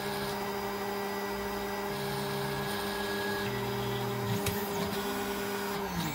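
A Snapmaker machine's stepper motors hum steadily as they drive the toolhead and bed, with a lower tone switching on and off in steps. There are brief high rising-and-falling whines about four and a half seconds in, and near the end the hum glides down in pitch as the motion stops.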